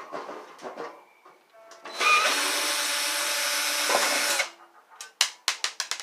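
Power drill-driver running steadily for about two and a half seconds, unscrewing the casing of an electric heater, followed by a quick series of sharp metallic clicks.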